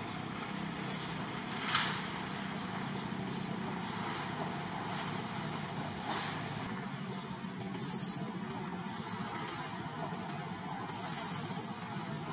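Infant long-tailed macaque screaming: repeated short, very high-pitched squeals that arch up and down in pitch, over a steady background rumble.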